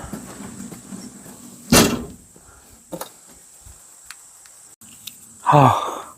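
One sharp, loud axe strike into a firewood log about two seconds in, followed by a couple of light knocks of wood. Near the end comes a man's groan that falls in pitch.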